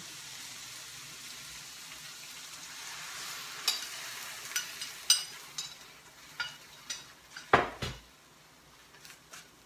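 Onions sizzling steadily as they fry in a pan, then a series of sharp clicks and scrapes as an egg-and-cream mixture is poured in and scraped out of a cup with a spoon. A single louder knock comes about two seconds before the end, after which the sizzle drops away.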